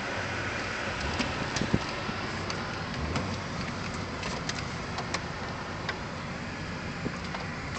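Car rolling slowly, heard from inside the cabin: a steady hum of engine and road noise, with light clicks and taps here and there.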